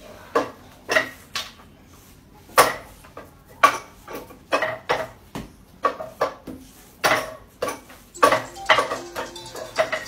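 Wing Chun wooden dummy being struck: forearms and hands knock against its wooden arms in sharp clacks with a short ring. The knocks come irregularly, in twos and threes at first, then faster, several a second, in the last couple of seconds.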